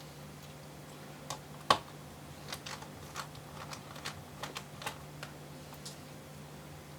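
Light, irregular clicks and taps of a small Phillips screwdriver and tiny laptop base screws being handled, with one sharper click a little under two seconds in.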